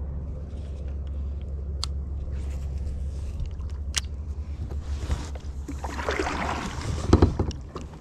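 A steady low rumble from a kayak out on the water, with clicks and handling noise from a baitcasting rod and reel. A louder rustling scrape with a few knocks comes about six to seven seconds in.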